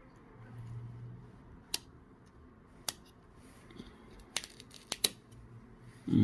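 A few small, sharp clicks, about five spread over several seconds, as the battery and screen connectors inside an opened iPhone 6s are unclipped.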